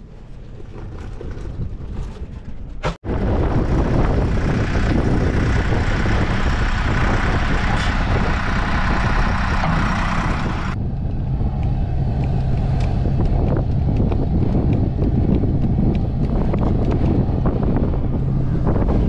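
Steady running of a backhoe-trencher's engine, a low hum, with strong wind buffeting the microphone. The sound jumps abruptly louder about three seconds in.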